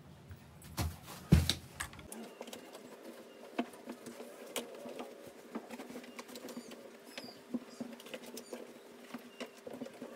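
Cotton bedsheet rustling and scratching as it is smoothed and tucked over a mattress by hand, with a couple of thumps about a second in, one much louder than the rest.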